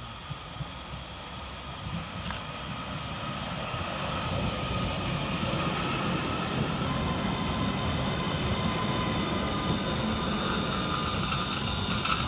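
Two coupled Class 331 electric multiple units running into the station, growing louder as they approach and then passing close by with a steady rumble and a steady high whine.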